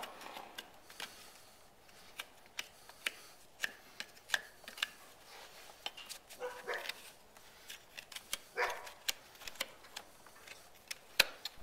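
Hoof knife paring the sole of a horse's hoof: short, irregular cuts and scrapes, a few a second, with two longer, louder sounds about six and a half and eight and a half seconds in.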